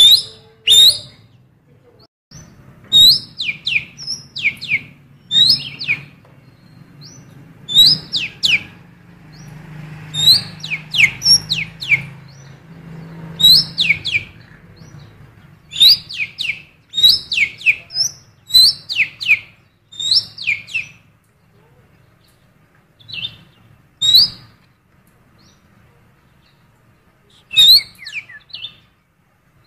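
A cucak keling songbird singing learned female oriental magpie-robin calls: sharp, downward-sliding whistled notes given in quick clusters every second or two, with a pause of several seconds in the latter part.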